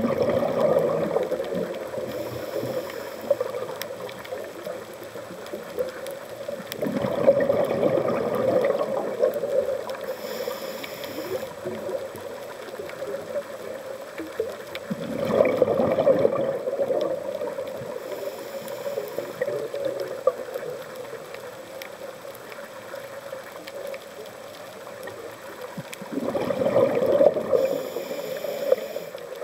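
Underwater sound of a scuba diver's breathing: four bursts of exhaled bubbles, each about two seconds long and spaced about eight seconds apart, each with a short high hiss from the regulator close by. Between them there is a steady drone and scattered faint clicks.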